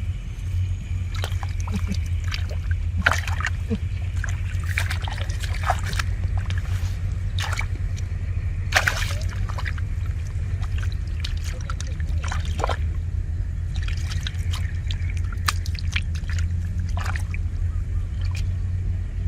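Shallow water splashing, sloshing and trickling in many short, irregular bursts, as in wading and groping by hand for fish in a flooded rice field, over a steady low rumble.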